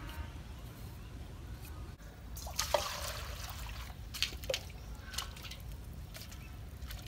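Water poured from a plastic scoop over a woven basket of food, splashing briefly about two and a half seconds in, then dripping and trickling.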